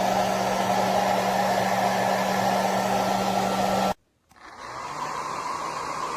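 AINA ionic hair dryer blowing steadily with a hum under the rush of air; it cuts off abruptly about four seconds in, and after a brief gap a quieter, duller steady blowing sound starts up again.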